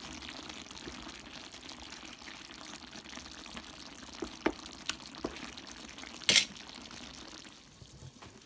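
Wooden spatula stirring and scooping saucy chicken and pork adobo in coconut milk in a metal pan: a steady wet sloshing, a few light clicks of the spatula against the pan, and one louder knock about six seconds in.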